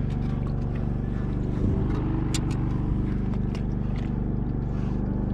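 A small engine on a bowfishing boat running at a steady speed, a constant low hum, with a few faint clicks over it.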